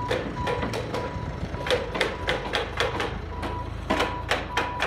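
A vehicle's reversing alarm beeping about twice a second over a low engine hum, with repeated sharp knocks of paving stones being tapped into place.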